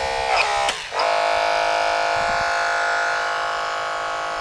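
Battery-powered Holmatro hydraulic rescue tool running: its electric motor and pump give a steady whine. Early on the pitch dips briefly and comes back up, then holds.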